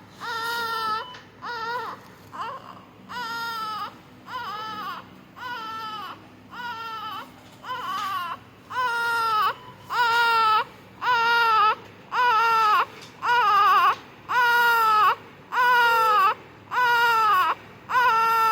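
Newborn making short, pitched, cry-like sounds about once a second, each dipping slightly in pitch, and louder in the second half. These are the grunting sounds that neonatal staff treat as a warning sign of respiratory distress.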